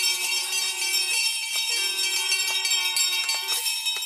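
Shrine bell rung over and over by hand, its ringing tones overlapping into a steady clangour with fresh strikes every fraction of a second. Under it runs a long held lower tone that breaks off once and starts again.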